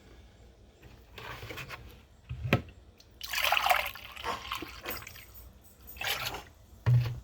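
Liquid pouring into a plastic jug in short spells, the longest about three seconds in. Two knocks from handling the jugs, one about two and a half seconds in and a louder one near the end.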